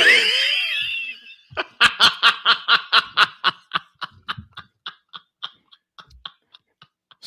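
High-pitched laughter: a loud rising squeal, then a run of quick 'ha' pulses, about four a second, fading away over several seconds.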